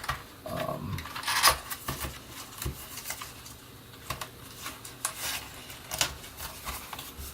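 Scattered light clicks and rustles of things being handled, with the sharpest clicks about a second and a half in and around five to six seconds in.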